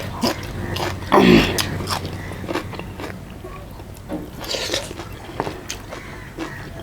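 Close-up eating sounds: a person biting and chewing food, with many small mouth clicks and a loud bite about a second in.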